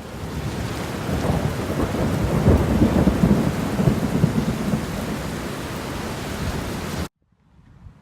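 Thunder rumbling through a heavy downpour of rain, the rumble loudest a couple of seconds in. The sound cuts off suddenly about seven seconds in, leaving a much quieter stretch.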